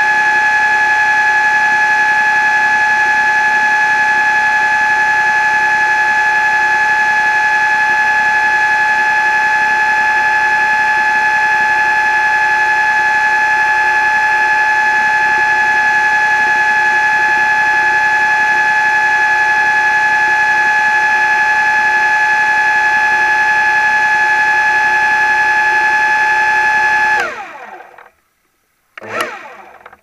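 A loud, steady motor whine holding one pitch, which glides down and stops near the end, followed by a brief burst of noise.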